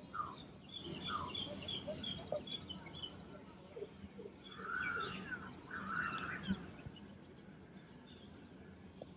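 Faint mixed birdsong from several different kinds of birds. It opens with a run of quick, high chirps over the first few seconds, and a couple of louder, lower calls come about halfway through.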